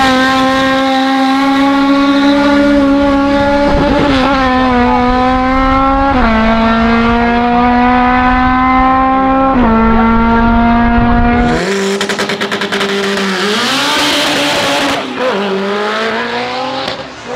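Drag-race car engine accelerating hard at full throttle: its pitch climbs steadily and drops sharply at each of three upshifts. About two-thirds of the way through, a second race car's engine takes over, its pitch rising and falling through a gear change as it comes closer.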